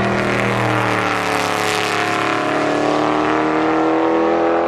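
Race car engine sound, its pitch dipping slightly and then climbing slowly, fading out at the end.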